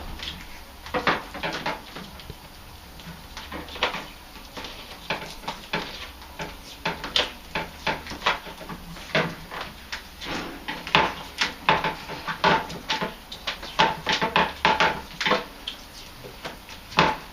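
Irregular crackles, rustles and clicks of tape being unrolled and wrapped to join a new hot tub control-panel cable onto the old cable, with the cables being handled.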